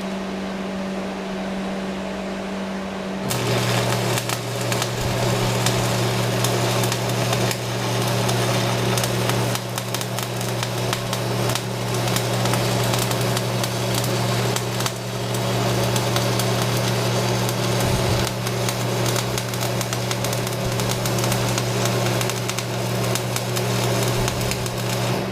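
Stick-welding arc of an Excalibur 7018 rod on a Lincoln AC/DC 225/125 tombstone welder, DC positive at about 105 amps. The arc strikes about three seconds in and crackles steadily with a low transformer hum under load as the rod is whipped along the bead. The longer stretch is run with a longer arc length and the last part with a tightened arc.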